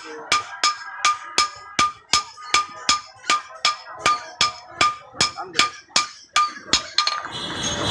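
Blacksmith's hammer striking metal on an anvil in a steady rhythm of about three blows a second, each blow ringing briefly. The hammering stops about seven seconds in.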